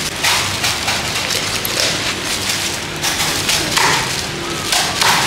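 Cleaver cutting through a crisp-skinned Hong Kong roast duck on a wooden chopping block: about five short crackly cuts, roughly a second apart.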